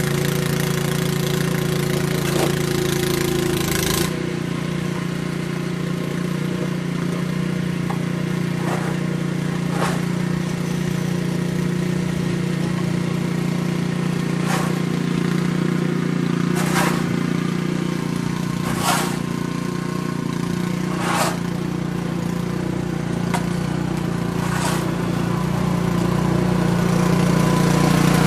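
An engine running steadily, with scattered sharp clicks over it; its tone shifts slightly about four seconds in.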